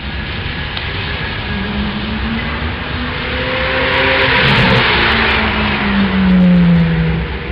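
Ferrari F430 Challenge's V8 engine accelerating past. The engine note rises as it approaches, a rush of sound comes as it passes close about four to five seconds in, and a loud held note falls in pitch near the end as it pulls away.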